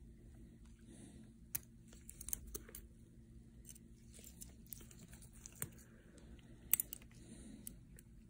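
Faint, scattered clicks and ticks of steel surgical instruments, a needle driver and forceps, being handled while deep sutures are placed. The loudest is a sharp double click late on. A steady low hum runs underneath.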